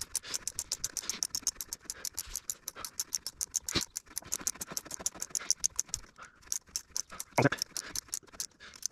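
Hand ratchet clicking in rapid, even strokes as a new exhaust manifold stud is run into the VW Polo's 1.4 16V engine, with a short pause past the middle and one louder metal knock a little before halfway.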